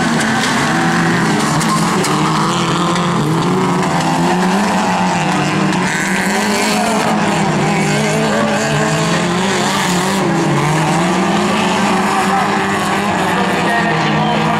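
Several small hatchback autocross race cars racing together, their engines revving hard, the pitch rising and falling over and over as they accelerate and back off through the corners.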